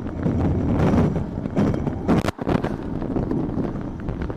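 Wind buffeting the microphone and sea water rushing and splashing over the deck of an ocean racing yacht in heavy weather, with a loud burst of spray about two seconds in.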